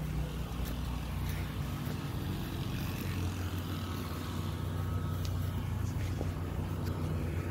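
A low, steady engine drone, its pitch shifting slightly about three seconds in.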